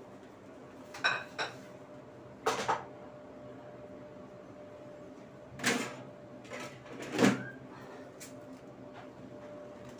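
A series of short household knocks and clatters, about seven in all in pairs and singles, the first with a brief ring and the loudest about seven seconds in, over a faint steady hum.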